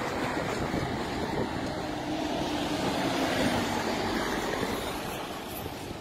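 Road traffic noise, with one vehicle passing and swelling to a peak about halfway through before fading.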